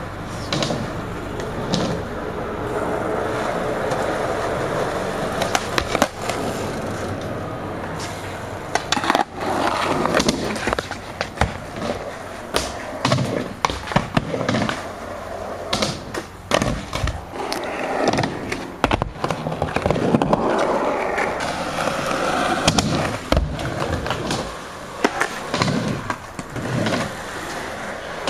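Skateboards rolling over concrete and ramps, a rumbling roll that swells and fades as riders pass. Many sharp clacks and knocks of boards slapping down, tails popping and wheels landing are scattered throughout, coming thicker in the second half.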